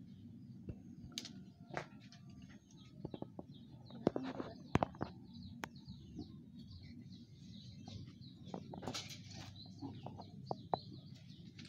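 Small birds chirping and twittering over a low background hum, with a few sharp clicks about four to five seconds in.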